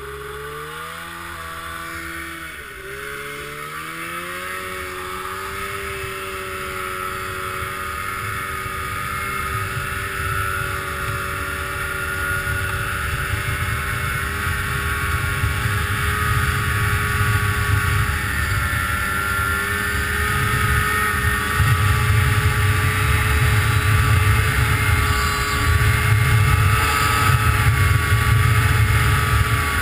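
Snowmobile engine running hard at high revs, heard close up. Its pitch dips about two seconds in, then climbs and holds steady while it grows louder, over a deep rumble that strengthens near the end.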